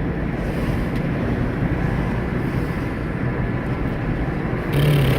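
Steady road and engine noise heard from inside a moving car, a constant low rumble with no clear changes. Near the end a brief, brighter rush of noise comes in.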